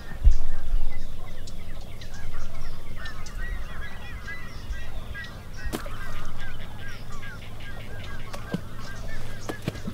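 Waterfowl honking in a quick run of short repeated calls from about three seconds in, after a low thump just after the start.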